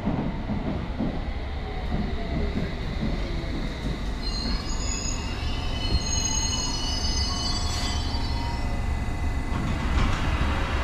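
London Underground District Line S7 Stock train running into the platform and braking to a stop. Its brakes squeal in several high-pitched tones from about four seconds in, over a steady low rumble.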